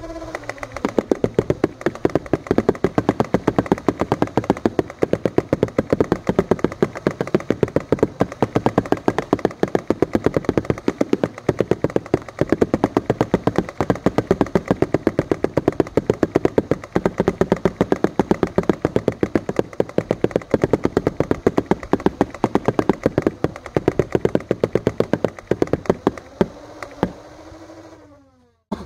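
Nerf Rival Prometheus electric flywheel blaster firing its full 200-round load on full auto: a steady, rapid run of shots, about eight a second, over the whir of its spinning flywheels. Near the end the firing stops and the flywheels wind down, falling in pitch.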